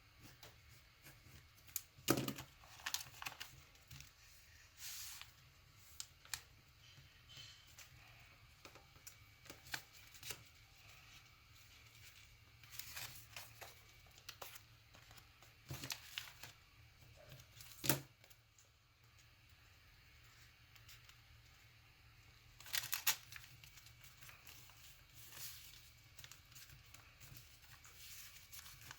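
Paper being folded and creased by hand, in intermittent crinkles and short sharp rustles.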